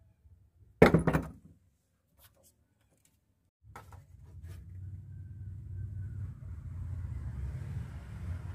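A single loud thunk about a second in, followed by a silent gap and then a low, steady rumble that starts near four seconds and keeps on.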